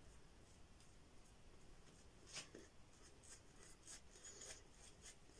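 Faint scrubbing and swishing of an Omega 10048 boar-bristle shaving brush working shaving cream into lather on the face and neck, with one slightly louder stroke about halfway through.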